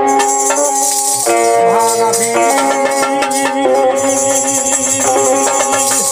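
Folk music: a harmonium holds chords that change every second or so, under a dholak beat and the steady jingling and clacking of wooden kartal clappers.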